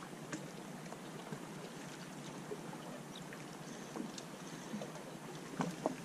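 Faint, steady wash of water lapping along a rocky shoreline, with a few small ticks and clicks scattered through it.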